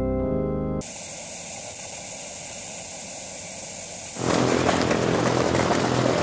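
Keyboard music cuts off about a second in and gives way to a steady static hiss. About four seconds in, a louder rough rolling and scraping takes over: a skateboard's wheels and trucks on a concrete plaza ledge.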